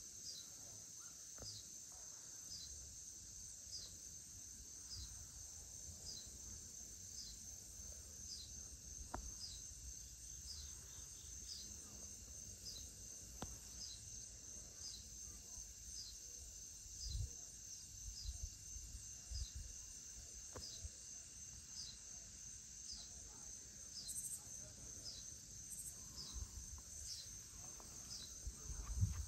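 Evening insect chorus: a steady high-pitched trill with a short chirp repeating about once a second over it. A low rumble sits underneath, with a brief thump about two-thirds of the way through.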